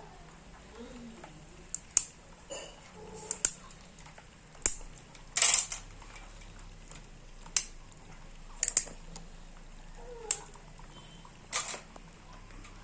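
Mud crab being cleaned by hand: irregular sharp cracks and snaps of shell and legs breaking, about ten in all, with one longer crackle about five and a half seconds in.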